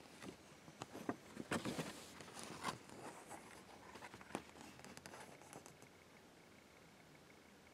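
Faint rustling, scraping and light clicks from a paper episode-list insert as it is handled and shifted, stopping about six seconds in.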